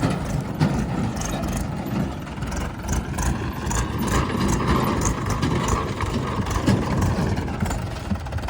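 Heavy-machinery diesel engine running steadily, with a few sharp knocks.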